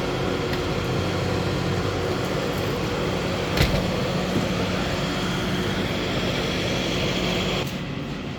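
A heavy engine running steadily with a low hum. There is a single sharp knock about three and a half seconds in, and the engine sound drops noticeably near the end.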